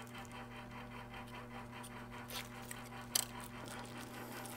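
Faint clicks of small plastic parts as printed-circuit ribbon cables are unclipped from a car display's circuit board, with one sharper click about three seconds in. A steady low hum runs underneath.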